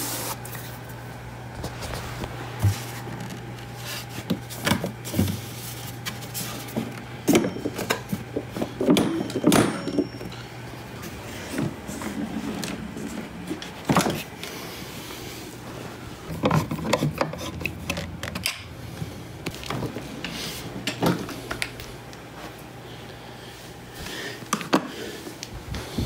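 Scattered clicks, knocks and rattles of plastic scooter parts being handled, as the push-in plugs are pressed back into the mobility scooter's body panel during reassembly.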